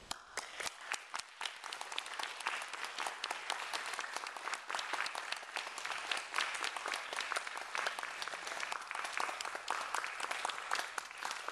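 Audience applauding: a few scattered claps at first, quickly filling into steady, dense clapping.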